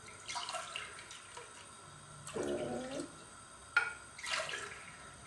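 Water poured by the glassful from a plastic jug, splashing and trickling in short spells, with a sharp knock about four seconds in.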